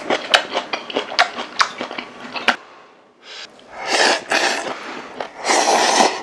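A run of light clicks and taps, then two people slurping ramen noodles in long, hissing pulls from about three and a half seconds in.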